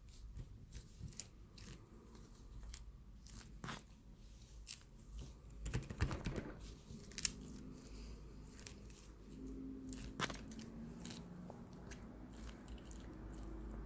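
Chewing and crunching: irregular small sharp clicks, with a louder cluster about six seconds in.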